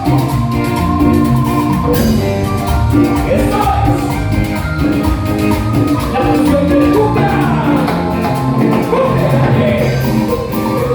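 Cumbia band playing live, with a steady beat and melody running throughout.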